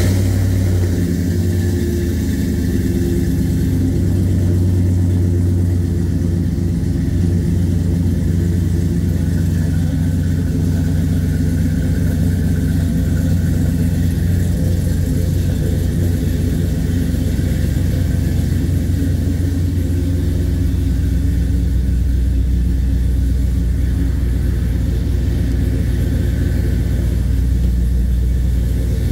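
LS-swapped Chevy Apache pickup's V8 idling just after a cold start, breathing through shorty headers, 3-inch stainless exhaust and two Flowmaster Super 44 mufflers. It runs steadily throughout, and the idle settles to a lower pitch about twenty seconds in.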